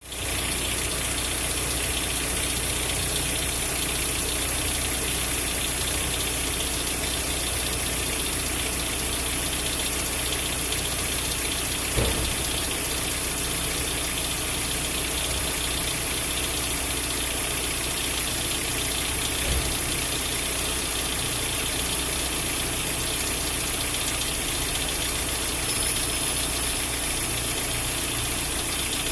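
Hyundai Elantra 1.8 four-cylinder engine idling steadily with a repeating 'glik glik' clicking noise that appears after the engine is started. Two brief knocks sound about 12 and 19 seconds in.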